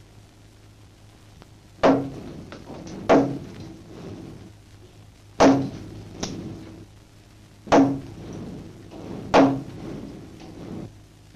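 Hammer blows on a wooden pit prop during timbering of a mine gallery: five heavy strikes, one every second or two, each dying away quickly, over a low steady hum.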